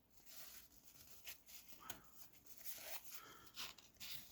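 Faint rustling and soft scraping clicks of old cardboard trading cards being flipped through and handled, in irregular short strokes.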